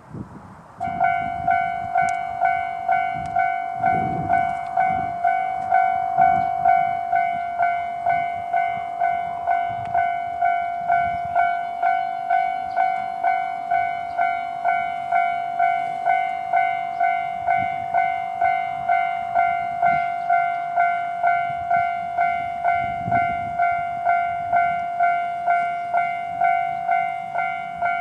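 Japanese railway level-crossing alarm switching on about a second in, then sounding its electronic bell in steady repeated strokes, about one and a half a second, warning that a train is approaching.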